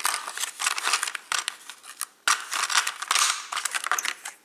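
Thin clear plastic packaging crinkling and rustling as toy cooking pots are pulled out of it, with a short break about two seconds in.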